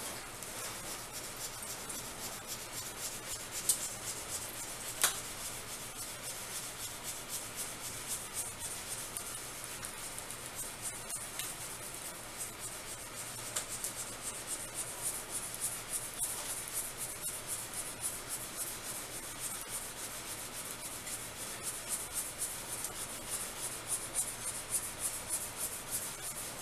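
A makeshift squeegee is rubbed back and forth over a tablet screen protector, pushing the air pockets out from under the film. It makes a steady, fine scraping, with two sharp clicks about four and five seconds in.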